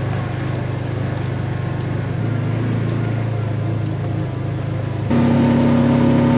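Side-by-side UTV's engine running steadily under way, its pitch stepping up slightly about two seconds in. About five seconds in the sound turns abruptly louder, with a stronger hum.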